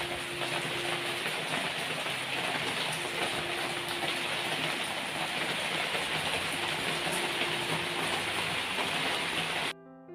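Steady hissing noise, with a faint on-and-off hum under it, cutting off suddenly near the end to soft piano music.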